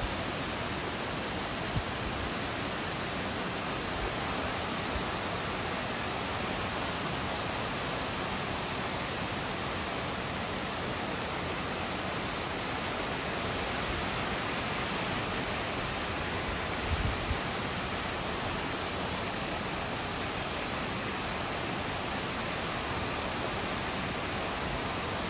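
Heavy rain falling steadily on the trees and the street, a dense, even hiss. There is a brief low thump about two-thirds of the way through.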